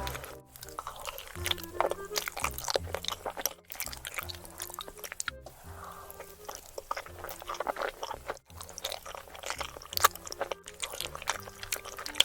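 Close-miked eating sounds, wet chewing and crunching with many sharp clicks, over background music with a repeating bass line.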